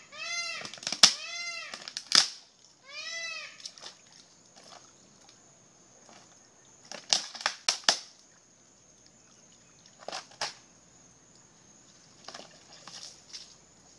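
American alligator's jaws crunching through a turtle's shell: sharp cracks, the loudest about a second and two seconds in, a quick run of cracks around seven to eight seconds and two more near ten seconds. Early on and once more around three seconds, an animal call repeats, each note rising and falling.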